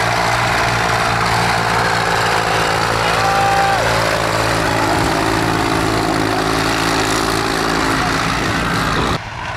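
Tractor engines running steadily under a continuous engine drone. The sound drops abruptly to a quieter engine sound near the end.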